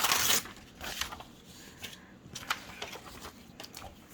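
Paper pages of a sales catalog rustling as they are handled and turned, with a loud rustle at the start and another about a second in, then a few light paper ticks.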